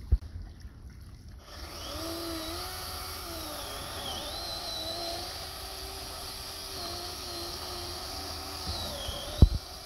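Chainsaw running, its pitch rising and dipping as the throttle changes, starting about a second and a half in and stopping just before a single sharp knock near the end.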